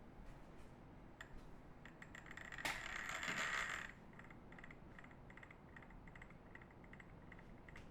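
Typing on a Matrix Noah V1 mechanical keyboard with lubed Gazzew Boba U4T tactile switches, an aluminium plate and GMK keycaps. A louder, dense flurry of keystrokes comes about two and a half seconds in and lasts just over a second, followed by lighter, quieter key presses a few times a second.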